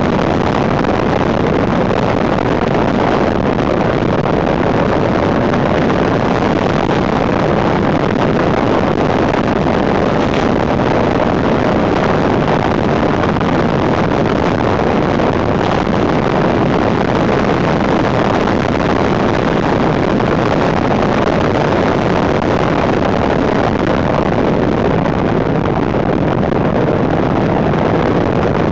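Steady wind noise buffeting a handlebar-mounted camera's microphone at road speed, mixed with the running note of a Suzuki GSX 750 F Katana's inline four-cylinder engine, with no clear changes in revs.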